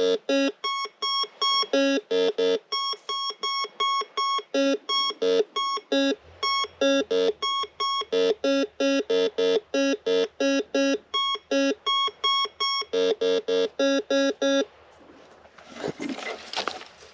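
Metal detector giving target tones as it sweeps over buried metal: a quick run of short beeps, about three a second, switching between a high tone and a low tone. The beeps stop near the end, and rustling and scraping follow.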